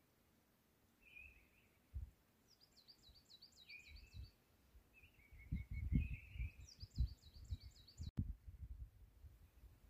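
Small songbirds singing: short chirps and two quick high trills of rapidly repeated notes, each about a second long, about two and a half and seven seconds in. Under them, from about halfway, irregular low thumps, the loudest sounds.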